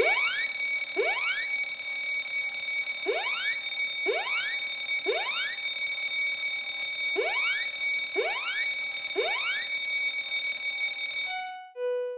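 Fire alarm sounding: a continuous high ringing tone with repeated rising whoops, roughly one a second, that cuts off about 11 seconds in.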